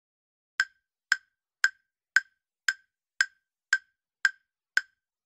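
Countdown timer sound effect ticking evenly, about two short, woody clicks a second, nine in all, starting about half a second in.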